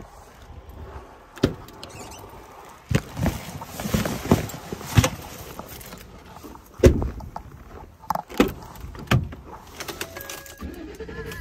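Knocks and clunks of gear being handled and loaded into a pickup truck's back seat, with a truck door shutting with a heavy thump about seven seconds in.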